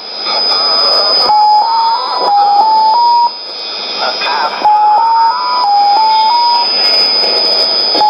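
Unidentified shortwave signal on 9485 kHz, tuned in upper sideband on a Sony ICF-2001D receiver. A run of six short stepped beeps repeats about every three and a half seconds, with a garbled, warbling sound between the runs, over static and a steady high whistle.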